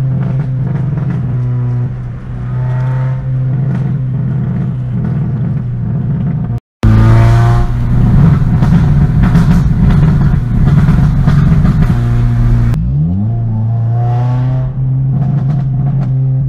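Modified 2005 Acura RSX base model's 2.0-litre four-cylinder engine, heard from inside the cabin, driving under load with a loud exhaust. The revs climb in rising sweeps several times, with sharp pops from the exhaust backfiring. About 7 seconds in the sound drops out briefly and returns louder and harsher for several seconds.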